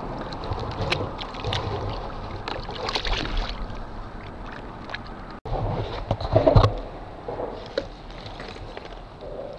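Water splashing and sloshing at a kayak's side as a released striped bass thrashes off at the surface. After a break, more splashing as a hooked fish is brought up beside the kayak, loudest about six and a half seconds in.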